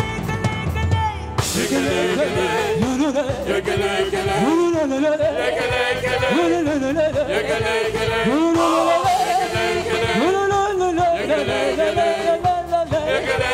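Live gospel praise band playing: drum kit hits in the first second or so, then singing voices that slide up and down between notes over the band.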